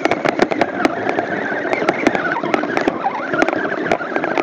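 Axial SCX10 Dingo RC truck's electric motor whining and wavering in pitch as it churns through swamp water and weeds, with water sloshing and many crackles and clicks from weeds and mud hitting the truck close to the on-board microphone.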